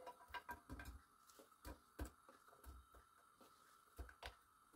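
Pieces of sliced red onion dropped by hand into a non-stick frying pan, landing with faint, irregular soft taps.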